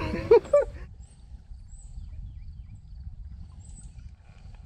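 Low, uneven outdoor rumble with a few faint, short, high bird chirps spaced a second or two apart.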